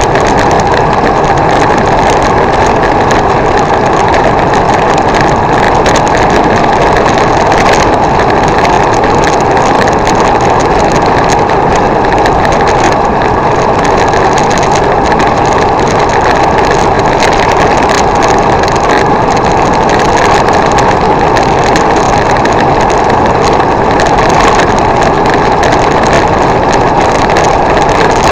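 Loud, steady rushing noise of a bicycle ride on a wet road, picked up by a bike-mounted camera: wind over the microphone and tyre hiss.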